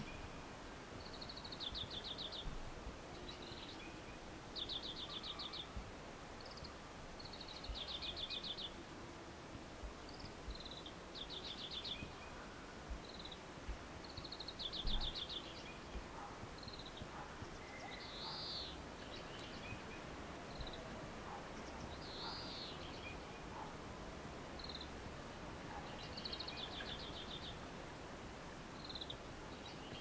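Male Oriental Greenfinch singing: short trills of rapid high notes, each under a second, repeated every two to three seconds, with single short chirps between them.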